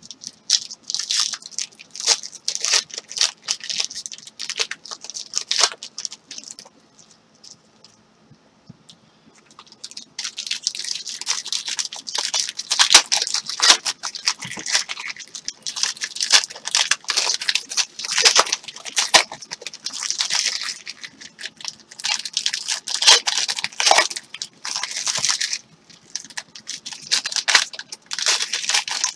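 Foil wrappers of Panini Prizm Draft Picks football card packs being crinkled and torn open, with the cards handled, in irregular crackling bursts. There is a lull about six seconds in, and dense crinkling starts again around ten seconds in.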